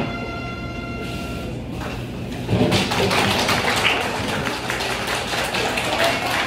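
The last held note of a performance fades out, then about two and a half seconds in an audience starts applauding, dense and irregular.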